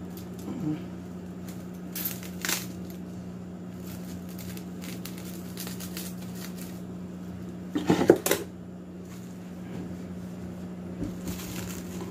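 Plastic cling wrap crinkling as it is pulled off the roll, cut with scissors and pressed over a plastic measuring cup, in short rustles about two seconds in and a louder burst near eight seconds. A steady low hum runs underneath.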